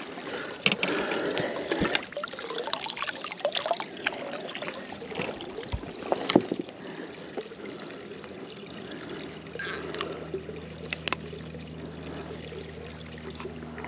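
Water trickling and dripping off a wet landing net and a freshly netted walleye, with small knocks and rattles of the net and fish being handled on a boat deck. A low steady hum comes in about two-thirds of the way through.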